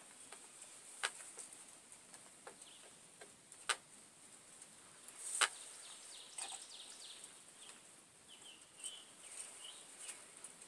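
Three sharp clicks or ticks, the last the loudest, over a faint steady hiss, with short bird chirps in the second half.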